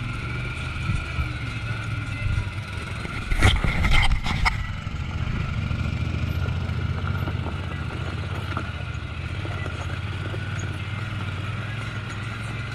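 A vehicle's engine running steadily on the move, with a cluster of sharp knocks or rattles about three and a half to four and a half seconds in.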